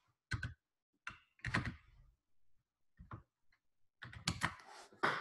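Computer keyboard keystrokes: a handful of separate, faint key taps, spaced unevenly, as letters are typed one at a time.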